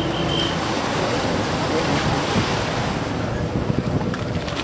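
Wind buffeting the microphone over a steady waterfront noise, with personal watercraft engines running at the race start area. A steady engine tone drops away about half a second in.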